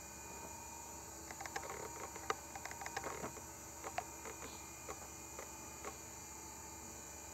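Toshiba MK6014MAP 2.5-inch laptop hard drive spinning with a steady faint whine, its heads seeking in a run of irregular sharp clicks that start about a second in and die away near the end. The drive still works but is rated in bad health, with its head load/unload cycle count worn below threshold.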